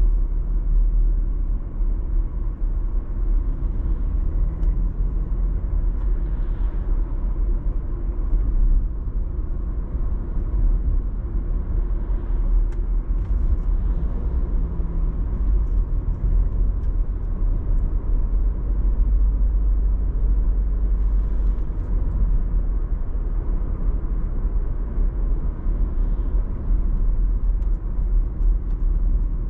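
A car driving along the road, giving a steady low rumble of tyre and engine noise.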